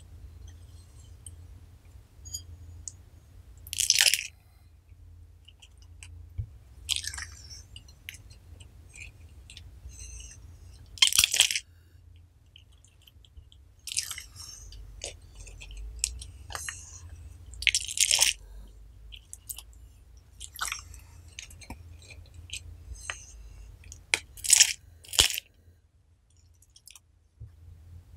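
Slime being squeezed through a hand-held garlic press: a series of short squishes, about eight louder ones spread out, with quieter small clicks and ticks of the press and slime between.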